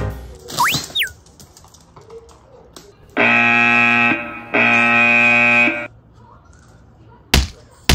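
Edited-in comedy sound effects: a quick whistle sliding up and then down about half a second in, then two long blasts of a wrong-answer style buzzer, and a couple of sharp clicks near the end.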